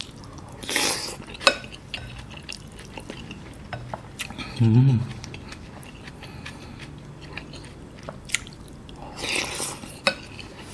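Close-up chewing and mouth noises of someone eating a spicy stew with rice, with a few sharp clicks of wooden utensils against a glass bowl. A short hummed "mm" about halfway through.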